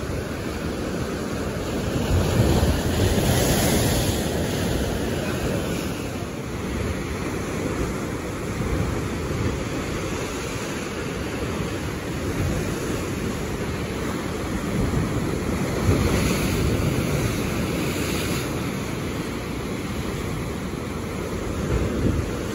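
Heavy sea surf at high tide breaking against rock cliffs and washing through a rocky cove: a continuous rush of churning water. It swells louder as bigger waves hit, about two to four seconds in and again around sixteen to eighteen seconds in.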